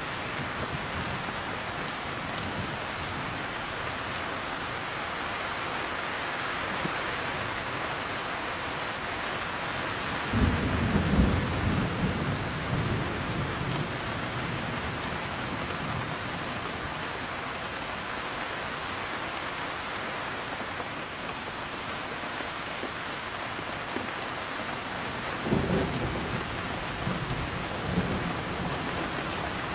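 Heavy rain falling steadily, with a sudden loud rumble of thunder about a third of the way in that rolls on for a few seconds, and a second, weaker thunder rumble near the end.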